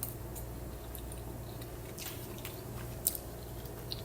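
A person chewing a big mouthful of spaghetti, with a few soft wet mouth clicks, over a steady low hum.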